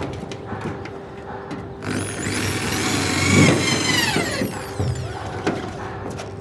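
An electric power tool runs for about two and a half seconds, its whine rising as the motor spins up and falling as it winds down.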